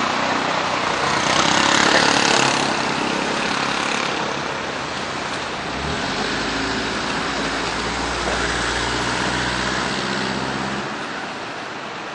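Road traffic at a busy crossing: a vehicle goes by loudly about two seconds in, then a low engine hum sets in from about six seconds and fades near the end.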